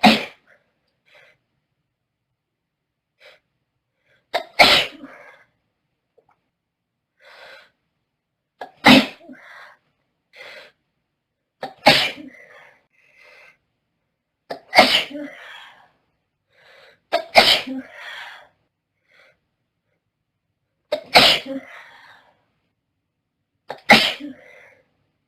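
A girl sneezing eight times in a row, a sudden loud sneeze about every three seconds with quieter breaths between: a hay-fever sneezing fit.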